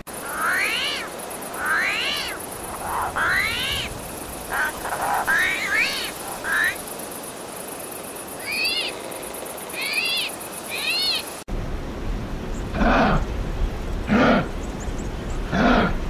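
Armadillo squeaks: about a dozen short, high calls, each rising and falling quickly, over a steady high insect-like buzz. After an abrupt cut about eleven seconds in, a few short, lower grunts.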